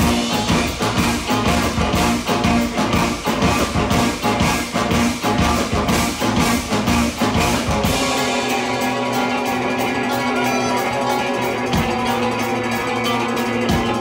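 Live band of saxophone, trombone, electric guitar, keyboard, bass guitar and drum kit playing an instrumental passage. About eight seconds in the lowest notes drop away, leaving a lighter texture over a fast ticking beat.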